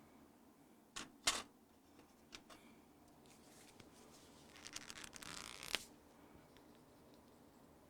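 Writing on paper: two sharp clicks about a second in, then about a second of scratchy pen strokes ending in a click, as numbers are written out and crossed off.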